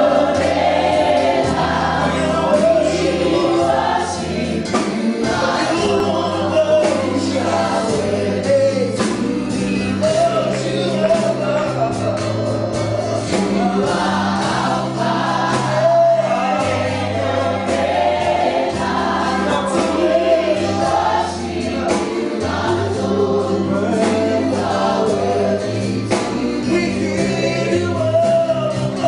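Live gospel worship singing: a praise team of women and a man singing into microphones over low accompaniment notes that are held and change every second or two.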